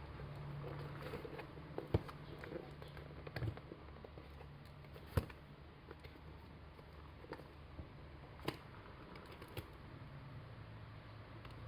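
Scattered small clicks and taps of hands handling the packaging and replacement Google Pixel 2 XL LCD screen during unboxing, with a few sharper clicks about two, five and eight seconds in.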